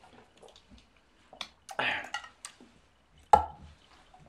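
Small plastic yogurt-drink bottles being handled and drunk from: light plastic clicks, a short breathy sound about two seconds in, and a single sharp knock on the wooden table a little after three seconds in.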